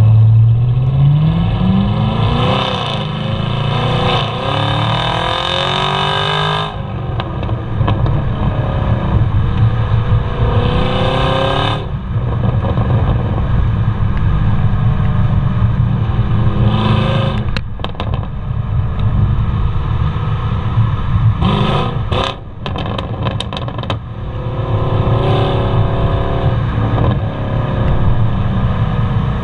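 2021 Camaro SS 1LE's 6.2-litre LT1 V8 through its NPP performance exhaust, revving up in several pulls, its pitch climbing and then falling away each time. Sharp pops and crackles from the exhaust come in two clusters a bit past the middle.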